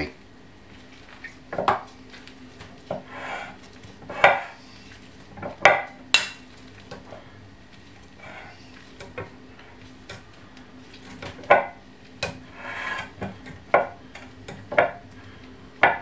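Metal wire potato masher mashing microwaved potatoes in a glass bowl: irregular clinks of the masher against the glass every second or two, with soft squashing between.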